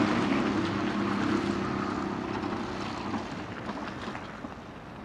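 Small moped engine buzzing steadily, fading away as the riders move off.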